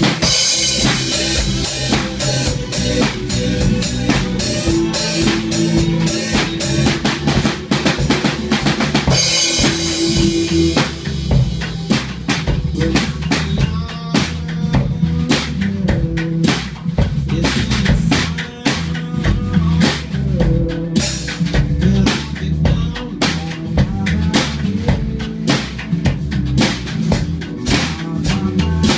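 PDP acoustic drum kit played in a steady rock beat, bass drum, snare and Zildjian cymbals, over a backing song with pitched instruments. Cymbal crashes ring near the start and again about nine seconds in.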